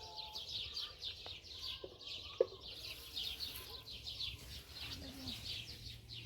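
Birds chirping rapidly and continuously, with a few lower calls and a steady low hum underneath.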